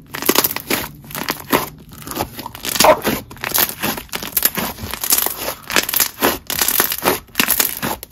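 Thick clear-based slime with jelly cubes being squished, stretched and pulled apart by hand, giving a dense run of sticky crackles and small bubble pops.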